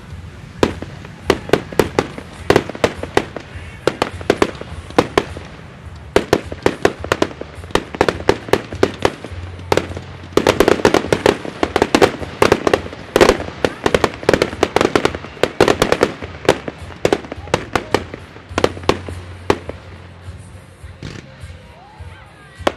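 Fireworks display: a fast, irregular run of sharp bangs and cracks from aerial shells bursting, thickest and loudest in the middle.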